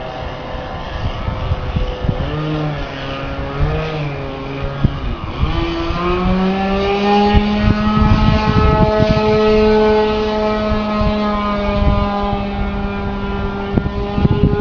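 Small engine of a radio-controlled Piper Cub floatplane model, its pitch wavering up and down with the throttle for a few seconds, then climbing about five seconds in and holding steady at high revs.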